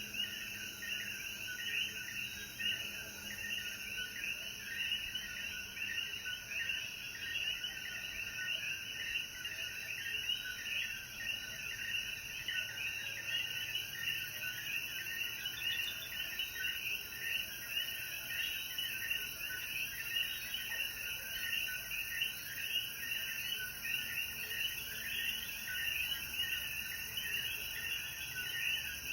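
A chorus of Puerto Rican coquí frogs calling, many short two-note calls overlapping without pause, over a steady high hiss.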